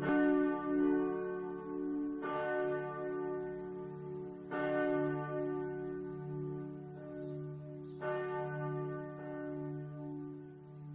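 A church bell tolling: four strokes about two to three and a half seconds apart, each ringing on with a low, wavering hum that fades until the next stroke.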